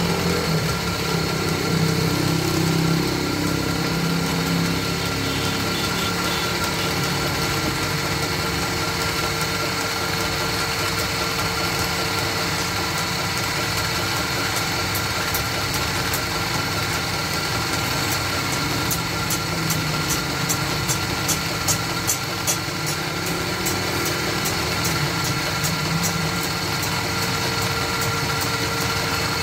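Electric motor of a small wood lathe running steadily, spinning a turned wooden bed leg while it is hand-polished. Past the middle, light regular ticks, about two a second, join the hum.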